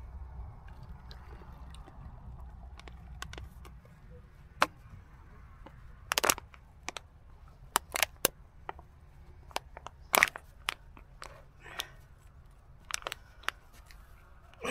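Packaging or rubbish being crumpled and handled by hand: irregular sharp crackles and clicks, a few of them loud, starting about four seconds in.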